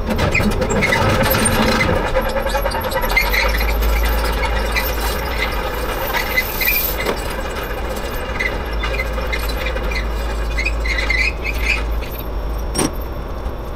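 Link-Belt tracked excavator driving off a trailer: its diesel engine running under load while the steel tracks give repeated short squeals and squeaks, with a couple of sharp clanks.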